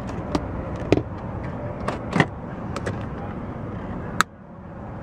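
Small clicks and taps of a car's rear door trim being handled: hand on the door pull and the armrest ashtray lid flipped open, over steady outdoor background noise. The sharpest click comes about four seconds in.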